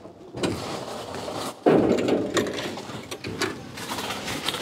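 Vending machine dispensing a can: a sudden clunk and rattle about one and a half seconds in as the can drops into the tray, then a few smaller knocks and clicks.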